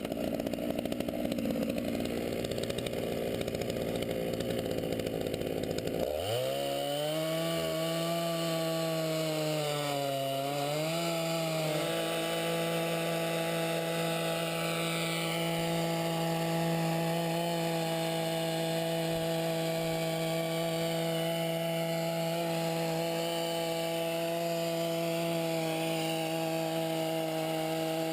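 Two-stroke chainsaw on a chainsaw mill running rough and unsteady at first, then revving up sharply about six seconds in, wavering, and holding a steady high engine speed from about twelve seconds on.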